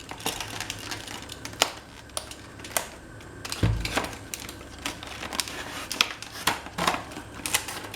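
Tight product packaging being forced open by hand: irregular sharp clicks and snaps, with one dull thump a little before four seconds in.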